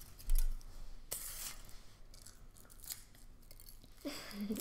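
Thin foil wrapper being peeled and crinkled off a Kinder Surprise chocolate egg, in light, scattered crackles. A low thump about half a second in is the loudest sound, and a short child's voice comes near the end.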